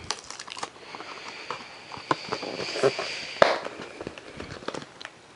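Rustling and crackling of a padded mailer as a cardboard trading-card box is slid out of it, with scattered small clicks and pops and one sharper click about three and a half seconds in.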